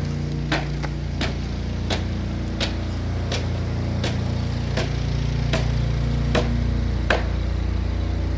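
Sharp knocks, evenly spaced about one every 0.7 seconds like steady hammer strikes, over an engine running steadily.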